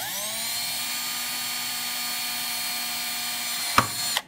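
Cordless drill spinning up quickly to a steady high whine as a small bit drills into the wooden base of a mousetrap car, with a sharp knock near the end just before the motor winds down and stops.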